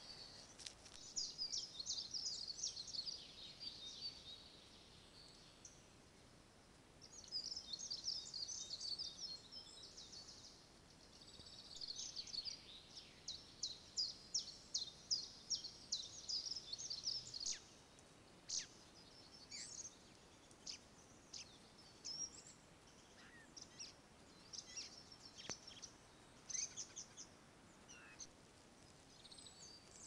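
Small songbirds singing in three long phrases of rapid, high notes, followed by scattered single chirps, over a faint steady hiss.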